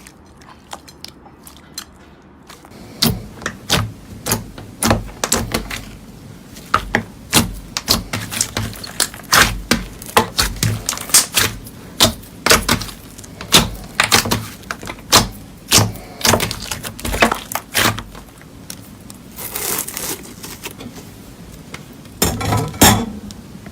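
Slime being squeezed and pressed, giving a run of sharp crackles and pops about one or two a second, with a longer crunchy rustle near the end.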